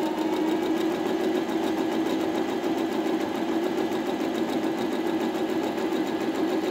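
Electric domestic sewing machine running steadily as it stitches forward through fabric: an even motor hum with a fast, regular needle clatter.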